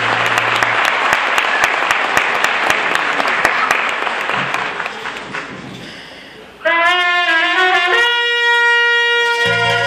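Audience clapping that dies away over the first five seconds. About six and a half seconds in, a brass tune starts suddenly, trumpet-like, with long held notes stepping between pitches.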